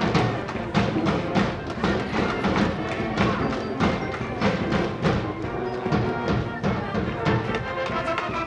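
School brass band cheering music with a steady drum beat.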